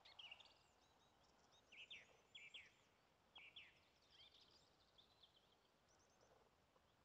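Faint songbirds chirping: short, high, quick notes in little clusters over the first few seconds, then scattered softer twittering.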